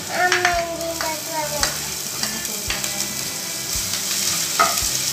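Chopped garlic and ginger sizzling in hot ghee and oil, stirred in a nonstick pan with a spatula. Several sharp clicks come from the spatula knocking against the pan.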